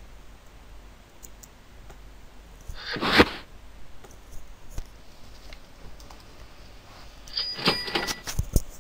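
Clicks and taps of a computer keyboard and mouse in two short clusters, one about three seconds in and a busier one near the end.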